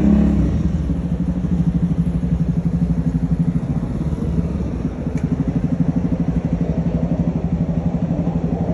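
A motor vehicle engine idling with a steady low throb, pulsing rapidly and evenly.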